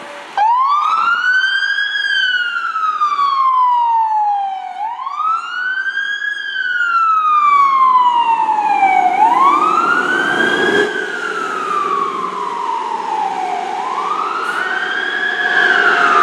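A fire ladder truck's siren starts about half a second in and wails in slow cycles, each rising quickly in pitch and then gliding slowly down, four times. The truck's engine rumbles underneath, louder in the second half.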